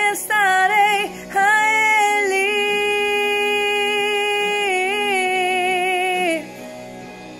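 A woman singing a gospel song: a few short sung notes, then one long held note with a slight vibrato that stops about a second before the end, leaving soft backing music.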